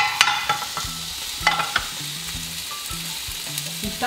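Pieces of chicken breast sizzling in oil in a pan, a steady hiss, with a few sharp clicks and knocks near the start and about a second and a half in.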